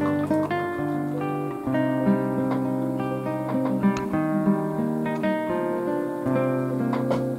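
Background music: an acoustic guitar tune, plucked and strummed.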